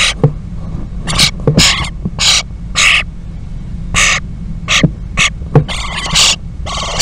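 Common starling nestlings begging in the nest box as an adult starling feeds them: a string of short, harsh, hissing calls, about ten in all, bunching together near the end. A few light knocks and a steady low hum from the box sit underneath.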